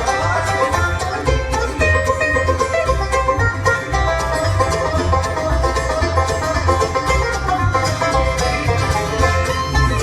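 Live bluegrass band playing an instrumental break with no singing: a fast plucked banjo lead over guitar and a steady low bass line.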